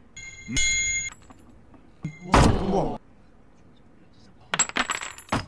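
Film sound effects of a revolver being snatched and handled: a short metallic ring near the start, a brief spoken line about two seconds in, then a quick run of sharp clicks and clacks near the end.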